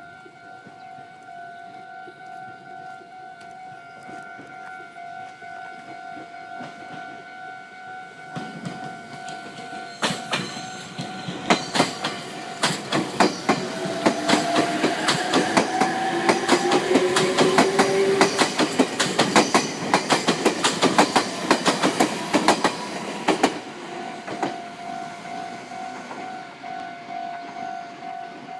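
A Japanese level crossing warning bell rings steadily. From about eight seconds in, an electric train passes over the crossing for about fifteen seconds, its wheels clattering rapidly over rail joints and a whine rising in pitch partway through. The bell is heard again once the train has passed.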